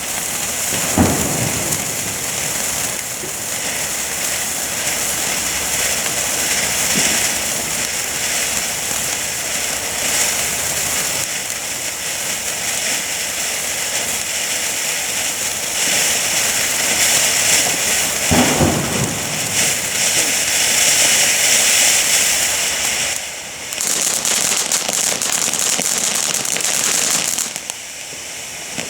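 Firework fountain spraying with a steady hiss and crackle that dips briefly twice near the end. Two short low thumps come through about a second in and again around eighteen seconds in.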